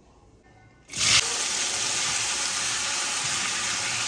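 Washed vegetables (potato, aubergine, peas) going into hot oil tempered with cumin, mustard seeds and curry leaves, setting off a sudden loud sizzle about a second in. The sizzle then carries on as a steady frying hiss.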